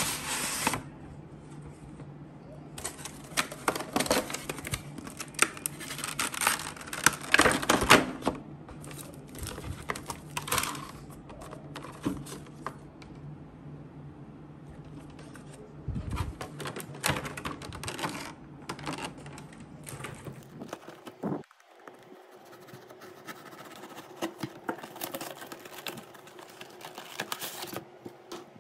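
Cardboard collection box and its clear plastic insert being opened and handled: irregular bursts of crackling and rustling with short pauses, over a steady low hum.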